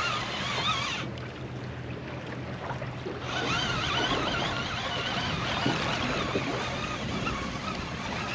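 Wind and sea water around a small anchored fishing boat, with a steady low hum and a wavering high whistle that drops out for a couple of seconds about a second in.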